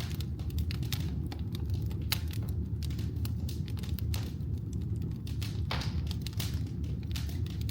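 Wood fire burning in a fireplace: irregular crackles and sharp pops of burning firewood over a steady low rumble of the flames, with a few louder pops.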